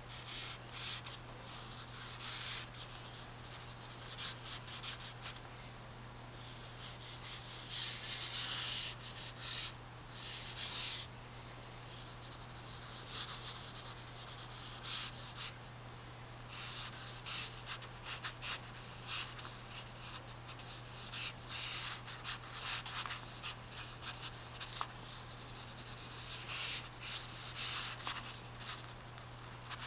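Charcoal scratching and rubbing across drawing paper in short, irregular strokes, over a steady low hum.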